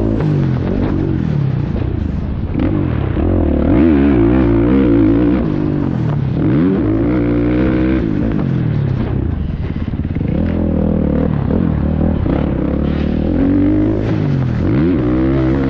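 Two-stroke motocross bike's engine revving up and dropping off again and again as the rider opens and closes the throttle around the track.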